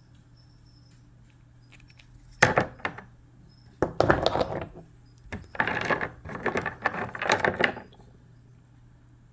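Cut pieces of rock clattering and clinking against each other as they are handled and rummaged through, in several bursts: a short one about two seconds in, another about four seconds in, and a longer stretch of rattling in the second half.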